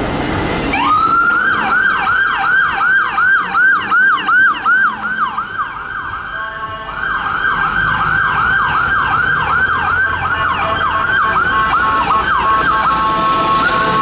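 Fire engine siren starting up with a rising wail, then switching to a fast warble of repeating pitch sweeps, about two to three a second. Near the end a steady held tone sounds alongside the sweeps.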